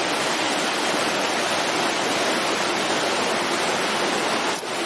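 Waterfall cascades rushing steadily over big boulders, a continuous loud hiss of falling water, with a brief dip near the end.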